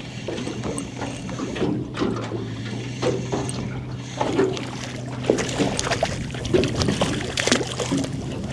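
Steady low hum of a small boat's motor with water splashing and scattered clicks and knocks as a small flathead is brought in and handled aboard.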